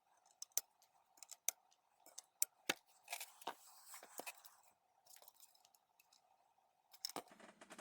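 Small hand tools clicking and snipping during capacitor replacement on a graphics card: many scattered sharp clicks with a short hiss a little past the middle, over a faint steady hum that stops about seven seconds in.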